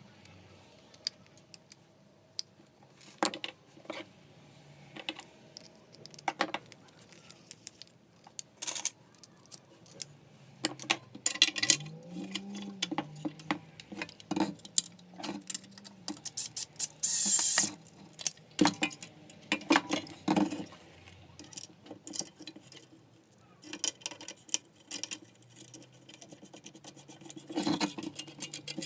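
Small metal parts, screws and plastic housing pieces of a Makita 9901 belt sander clicking, clinking and clattering as it is taken apart by hand, with a brief whir of a small motor rising and falling in pitch about twelve seconds in and a short loud scrape a few seconds later.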